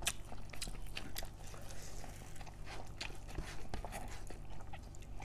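Close-miked chewing of mouthfuls of rice and pork curry: a run of small irregular clicks and mouth noises over a low steady hum.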